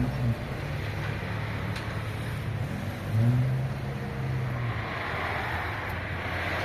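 A vehicle engine running, its low hum holding steady with small shifts in pitch.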